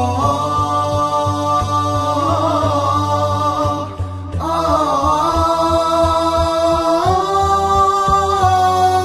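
Wordless interlude of an Arabic nasheed: a voice holds long sung notes that step to new pitches every couple of seconds, over a steady low backing, with a brief break about four seconds in.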